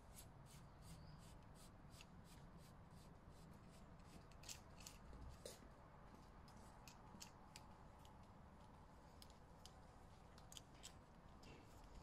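Faint, irregular clicks and ticks of a bicycle brake cable and its housing being pulled through and seated in a Campagnolo brake lever, a few sharper ticks near the middle.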